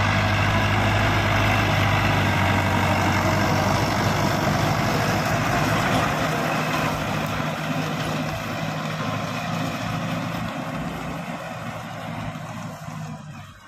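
Farm tractor's diesel engine running steadily under load as it pulls a rotary hay rake past. Loud at first, it fades steadily over the second half as the tractor moves away.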